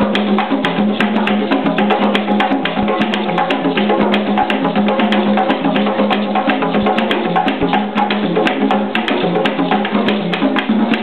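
An ensemble of tall African hand drums struck with bare hands, playing a busy, steady interlocking rhythm of many strokes.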